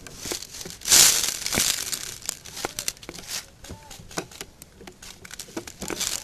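Loud close rustling and crinkling, strongest about a second in and fading over the next second or so, with scattered sharp clicks throughout.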